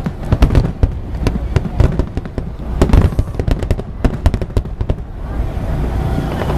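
Aerial fireworks bursting in rapid succession, many sharp bangs and crackles that stop about five seconds in, after which a steady din takes over.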